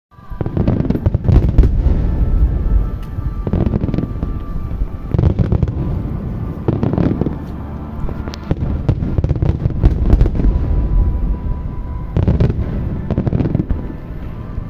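Fireworks going off in repeated volleys, clusters of sharp bangs and crackling that recur every second or two.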